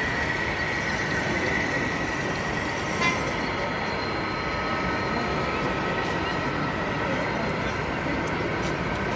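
Busy hall background: many people chattering indistinctly over a steady hum, with one short click about three seconds in.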